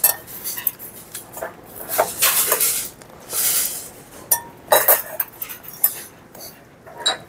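Chopsticks clicking and scraping against dishes and bowls while eating, with a handful of separate sharp clinks.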